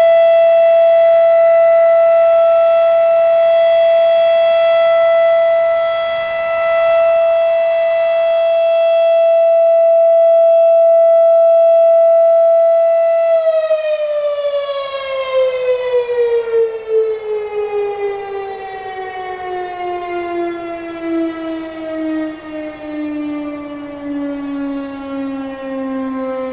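Federal Signal Thunderbeam RSH-10 electromechanical outdoor warning siren sounding the steady tone of a full alert test. About halfway through it shuts off and winds down in a long falling pitch, its loudness wavering as it slows.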